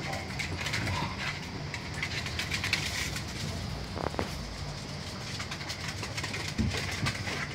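Dogs' claws clicking and scraping on stone floor tiles as they move about and play, many quick irregular clicks, with a brief squeak about four seconds in.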